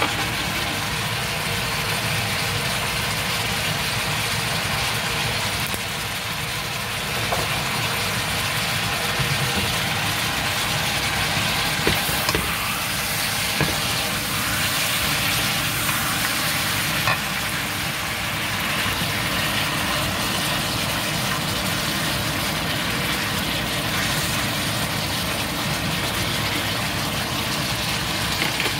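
Pork ribs, corn and bell pepper frying in a nonstick pan: a steady sizzle, with a few light knocks partway through.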